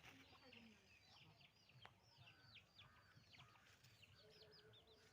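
Faint birdsong-like chatter of many short, high, falling chirps, with a few low clucks from chickens mixed in.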